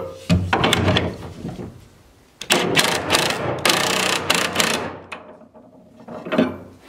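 Ryobi cordless impact driver running a socket onto the steel nut of the anchor bolt on a Simpson Strong-Tie HDU hold-down bracket, hammering rapidly in two runs, a short one and then a longer one, as the nut is drawn down tight against the bracket.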